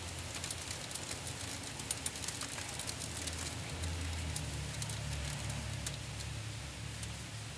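Hailstones striking hard surfaces: a dense spatter of sharp clicks over the steady hiss of rain, the clicks thickest in the first few seconds and thinning out after. A low steady hum runs underneath.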